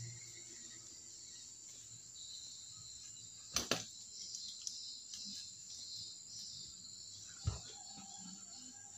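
Quiet room tone with a steady high-pitched whine and faint hiss, broken by two sharp knocks in quick succession about three and a half seconds in and a single knock about a second and a half before the end.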